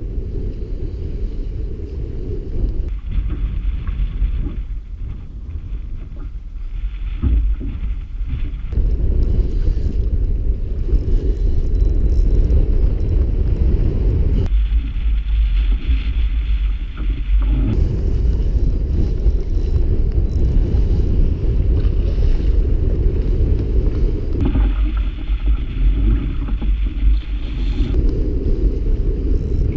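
Strong wind buffeting the microphone of a GoPro action camera on a kayak: a loud, gusting low rumble that grows louder about nine seconds in.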